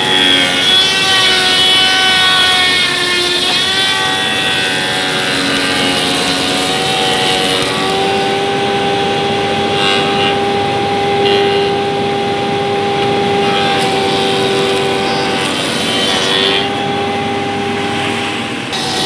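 Thickness planer running and planing a sonokeling (Indian rosewood) board: a steady mechanical hum with a sustained whine over the cutter noise, the pitch wavering at first and then holding steady.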